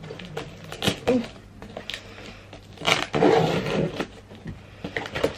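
A cardboard parcel being opened with a sharp pointed tool: scattered clicks and scrapes as the tape is pierced and slit, with a longer scraping rustle of cardboard about three seconds in.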